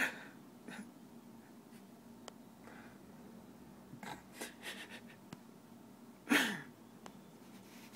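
A person's breath sounds close to the microphone: a few short noisy exhales, the loudest about six seconds in and falling in pitch, over a faint steady room hum, with a couple of faint clicks.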